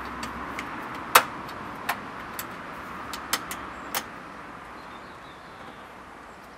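Irregular sharp clicks and taps as nuts and washers are worked by hand onto a vehicle snorkel's mounting studs behind the wing panel, over a steady background hiss. The clicks are loudest just over a second in and stop after about four seconds.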